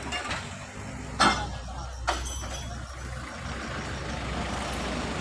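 Two sharp metallic clanks of scrap iron being handled, about a second apart, the second one ringing briefly, over the steady low running of a vehicle engine.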